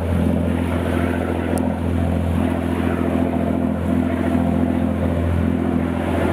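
Fishing cutter's diesel engine running steadily at low revs with an even, deep hum, towing a trawl net at slow speed.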